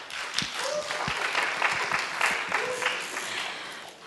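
Audience applauding: many hands clapping at once, a dense patter that fades out near the end.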